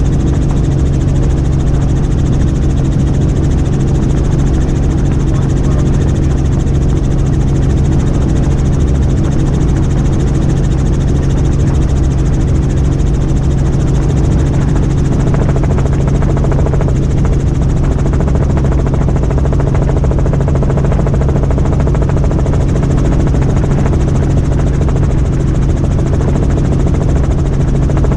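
Helicopter engine and rotor noise heard inside the cabin in flight: a loud, steady drone with a strong unchanging hum.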